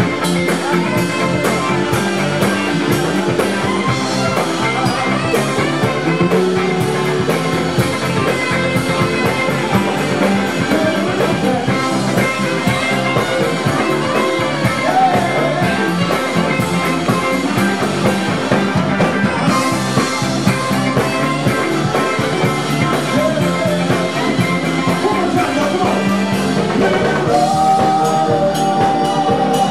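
Live dance band playing upbeat music with a steady drum beat, with a male singer's voice at times.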